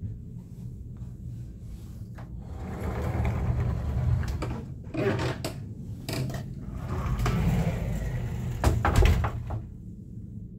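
Wooden sliding wardrobe doors slid along their metal track, scraping, with several knocks and clicks. The loudest knocks come about five seconds in and again near nine seconds.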